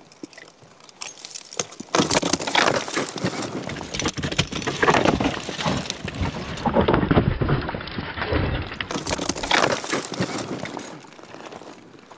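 Climbing rack of carabiners, nuts and cams jangling and clattering close to the microphone as the climber moves on the rock, with rustling and knocks. Loud and continuous from about two seconds in, easing off near the end.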